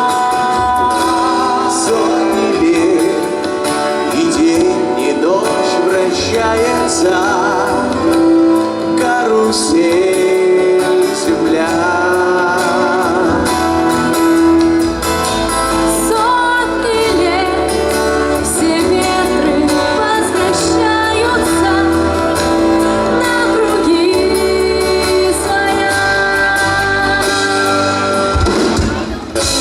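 Live pop song performance: singers' voices over a band with guitar and bass backing.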